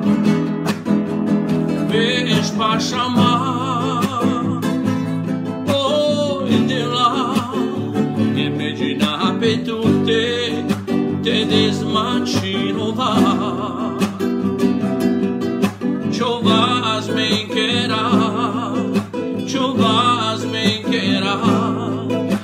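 A man sings with a strong vibrato while strumming a nylon-string classical guitar. The guitar plays alone for the first couple of seconds before the voice comes in, then the sung phrases come and go over the steady strumming.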